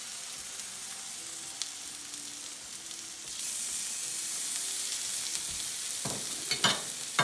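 Hot baked breaded chicken cutlets sizzling on a metal baking sheet as marinara is spooned onto them, a steady hiss that grows louder about halfway through. Near the end come a few clicks and knocks of a spoon against the glass sauce jar.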